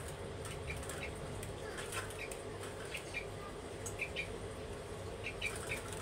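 Young yellow-vented bulbul (trucukan) giving short, high chirps, single or in pairs, about two a second, over a steady low hum.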